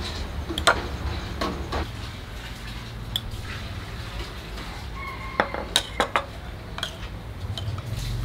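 Metal spoons clinking against ceramic bowls and a stainless-steel basin as coloured agar jelly mixture is spooned out and drizzled; scattered sharp clinks, with several in quick succession about five to six seconds in.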